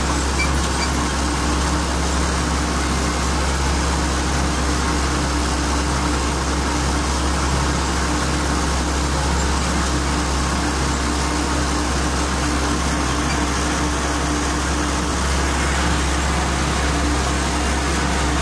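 Diesel engine of a Belarus (MTZ) tractor running steadily at working speed, heard from the driver's seat as it drives across a field.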